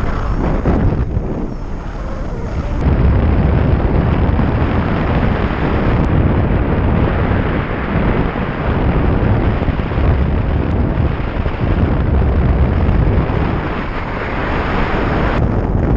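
Heavy wind rushing over a helmet- or glider-mounted GoPro's microphone in flight under an unpowered hang glider: a loud, steady rumble, with a few sudden jumps in level and tone where clips are joined.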